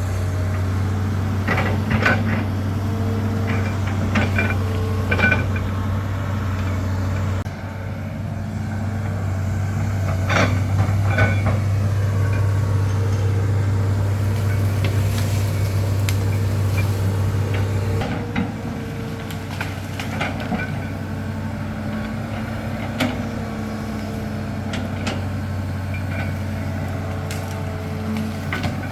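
Large excavator's diesel engine running steadily, with scattered sharp knocks and clatter. The drone shifts in level twice, about seven seconds in and again near eighteen seconds.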